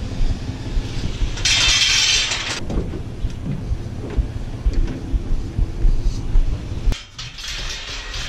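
A vehicle running with a steady low rumble, scattered clinks and rattles, and a burst of hiss about one and a half seconds in.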